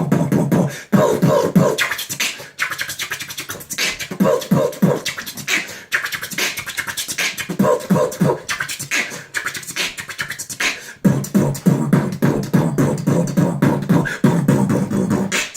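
Beatboxing: a fast rhythm of sharp mouth clicks and hissing snare-like hits, mixed with short hummed bass tones, with brief breaks in the pattern.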